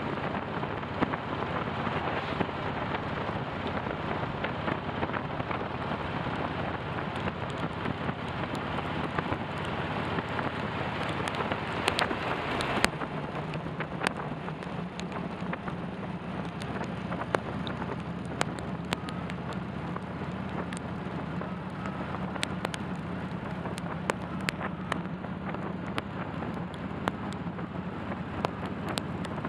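Motorcycle riding in the rain: steady wind and road noise, with sharp ticks of raindrops hitting the camera. About 13 seconds in the sound changes to a steadier low drone of the motorcycle, with scattered drop ticks.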